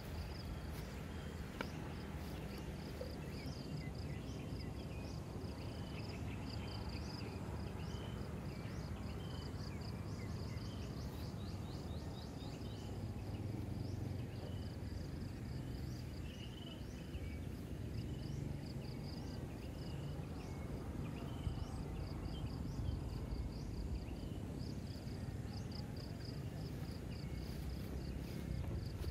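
Insects chirping in a steady, fast pulsing pattern, with scattered shorter chirps and a low steady rumble underneath.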